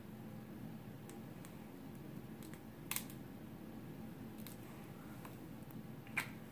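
Faint, sharp clicks and light taps, several of them at uneven intervals, from makeup products being handled, over a low steady room hum.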